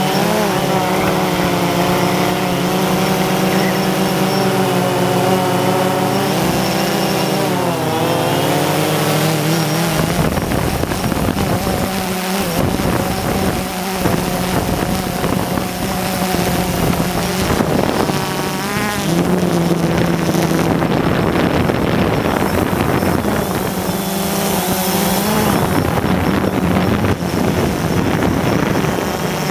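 Drone's propellers humming steadily, the pitch dipping and swinging back up a few times as the motors change speed. A rushing noise joins in from about ten seconds in.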